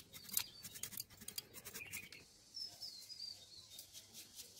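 A knife cutting into a raw green mango, a series of short crisp scraping strokes in the first two seconds. After that, small birds give a few short high chirps.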